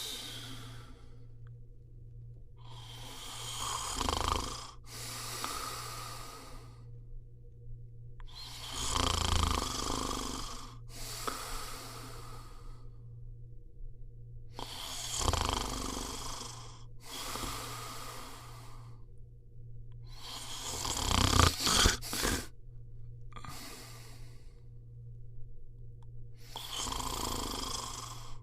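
A person snoring: rasping breaths in and out, repeating every couple of seconds, the loudest snore about three-quarters of the way through.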